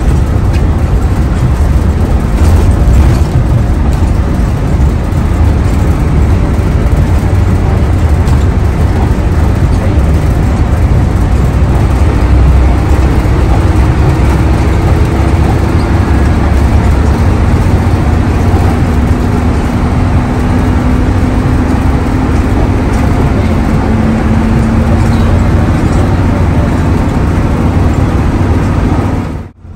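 Hino AK8 diesel bus under way: a steady, heavy engine and road rumble, with a faint whine slowly rising in pitch through the second half. The sound breaks off for an instant at the very end.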